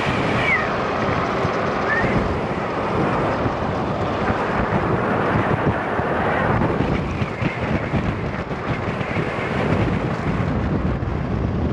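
Wind rushing over the microphone while riding an electric bike, a steady noise.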